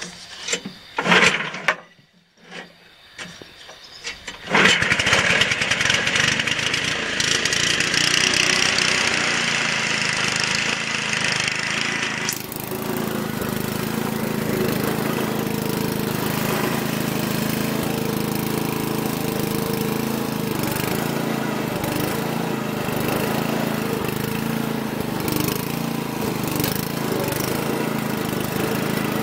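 Westwood ride-on mower's engine: a few short bursts in the first seconds, then the engine starts about four and a half seconds in and runs with a high whine. About twelve seconds in the whine drops away and the engine keeps running steadily while the mower is driven.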